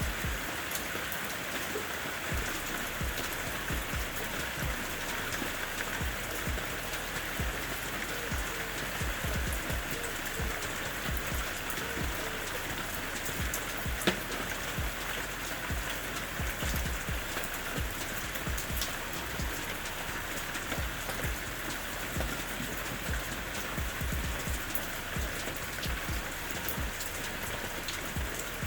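Steady rain falling, with many separate drops landing irregularly over an even hiss. One sharper drop hit comes about halfway through.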